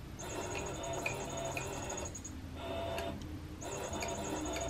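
Catty Whack electronic cat toy's battery motor whirring in spurts as it moves the hidden feather wand around inside the dome, stopping briefly twice.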